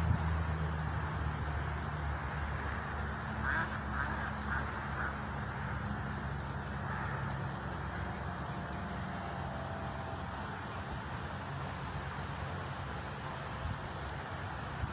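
A steady low mechanical hum throughout, with a quick run of about five short sharp sounds about three and a half seconds in.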